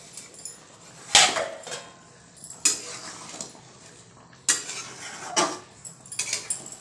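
Steel cookware clanking: sharp metallic knocks with brief ringing as a steel lid and utensils strike the steel pan, about five times.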